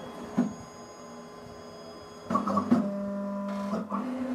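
Ghost Gunner 3 desktop CNC mill's axis motors driving the carriage as the machine homes. A steady motor whine grows louder about two seconds in, with a few light clicks, and steps up slightly in pitch near the end.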